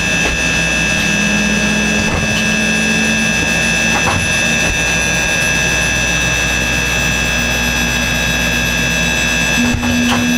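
De Havilland Canada Twin Otter's Pratt & Whitney PT6A turboprop engine accelerating on its starter just after light-off during an engine start: a loud turbine whine with several steady high whistling tones over a rush, heard inside the cockpit. A lower tone steps up in pitch about a second in and again near the end.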